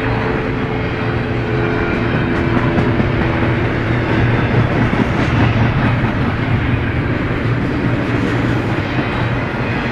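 A BNSF freight train rolling past: a loud, steady rumble of steel wheels on rail.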